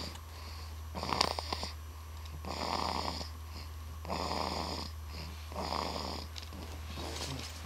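Snoring: four slow, rasping breaths in a steady rhythm, about one every second and a half, over a steady low hum.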